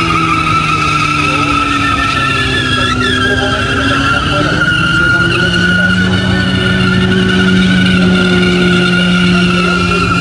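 A hatchback doing a burnout: the engine is held at high revs while the front tyres spin in place and squeal steadily, and the engine note rises a little about halfway through.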